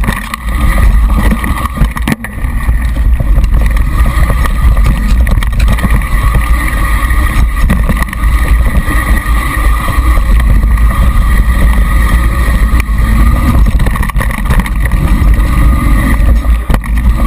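Mountain bike ride heard through a seat-post-mounted GoPro Hero2: constant heavy wind buffeting on the camera's microphone, mixed with the bike's rattle and tyre noise over a dry, rough trail. It dips briefly about two seconds in.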